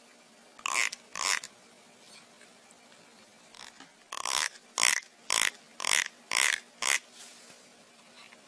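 Fingers run along the teeth of a plastic comb, making short rasping strokes: two about a second in, then about six quick ones from about four to seven seconds in. A sound like this is known to set some cats licking their lips and gagging.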